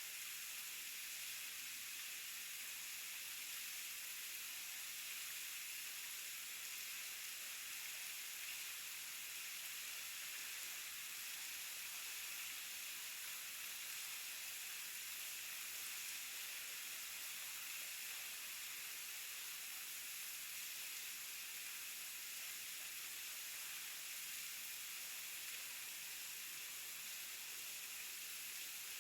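Waterfall: a steady, even rush of falling water, heard mostly as a high hiss.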